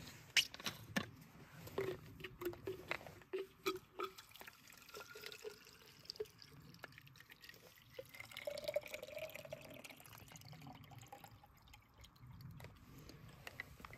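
Water dripping in a quick run of plinks, then pouring into a container with a tone that rises as it fills.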